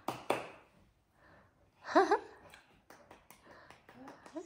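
Two hand claps at the very start, then about two seconds in a toddler's short high-pitched vocal sound with a wavering pitch, followed by a few faint taps.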